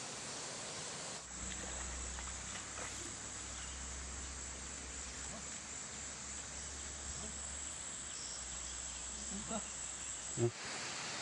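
Insects chirring in a steady high-pitched drone, with faint distant voices and a single knock near the end.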